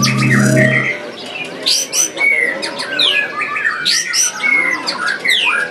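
White-rumped shamas (murai batu) singing in competition: several birds at once, a dense, loud mix of quick whistled phrases, sweeping notes and rattling calls. A low steady hum sounds under them for about the first second, then stops.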